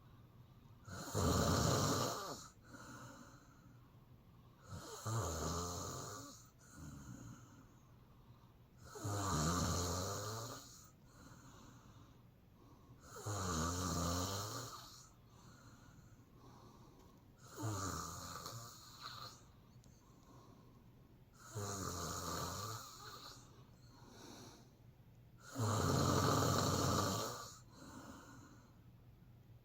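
A woman snoring in her sleep: a rough snore on each breath, repeating about every four seconds, seven in all, with softer breath sounds between.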